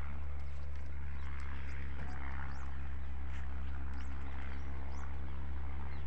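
Steady low drone of an engine running, level and unchanging, with faint short high chirps over it.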